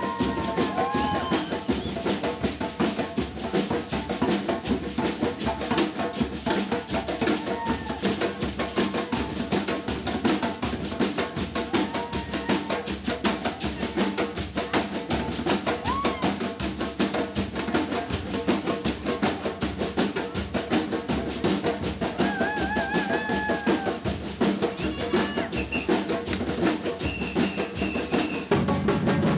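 Samba percussion band (batucada) drumming a fast, steady rhythm, with a few short pitched calls or voices over the drums.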